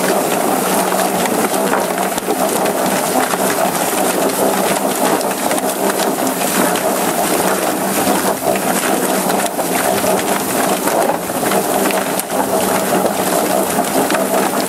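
Whizz Bang chicken plucker running: its spinning rubber-fingered plate tumbles a chicken around the plastic barrel, stripping the feathers, with a steady hum and a rapid patter of knocks as the bird strikes the fingers. A hose spray hisses onto the bird throughout.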